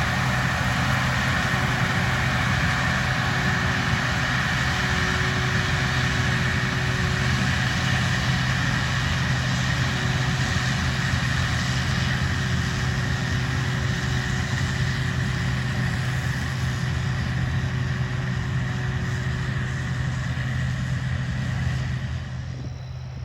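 Combine harvester running steadily in a corn field, a constant engine drone with a wide rushing noise over it; the sound drops off sharply near the end.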